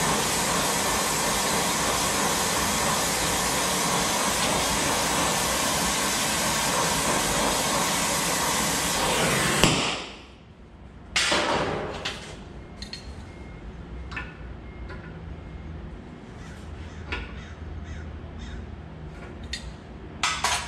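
Oxy-fuel torch flame running with a loud, steady hiss as it heats a steel leaf-spring clip, cutting off abruptly about ten seconds in. After that, a short burst of noise and then scattered light metallic clicks and knocks as pliers bend the hot clip.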